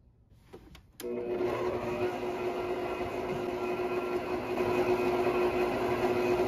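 Electric stand mixer switched on about a second in, its motor then running steadily with a constant hum while the dough hook turns in a bowl of flour.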